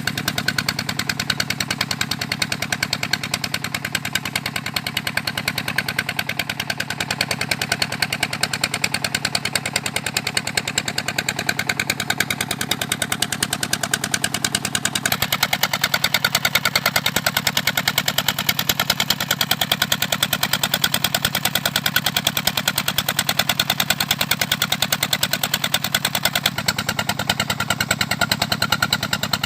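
Small engine driving a pump that sucks sludge out of a shrimp pond, running steadily with a fast, even chug. Its tone shifts a little about halfway through and again near the end.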